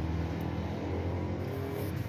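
A steady low mechanical drone.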